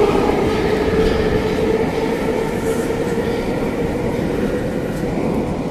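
Moscow Metro train leaving the station, its motors giving a steady whine over a rumble that slowly fades as it pulls away.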